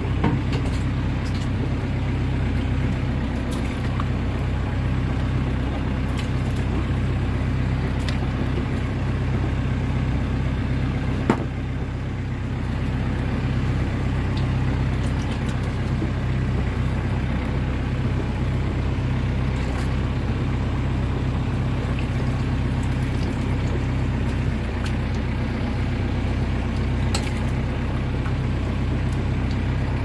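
Small motorboat's engine running at a steady cruising speed, a low even drone with water washing past the hull. A single sharp knock about eleven seconds in.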